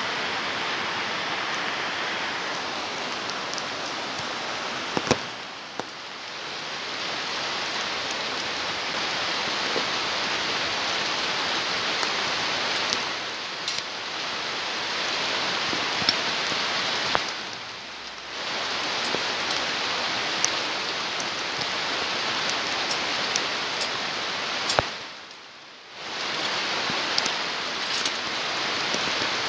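Steady hiss of falling rain, with a few sharp metallic clicks from tools working on the bicycle.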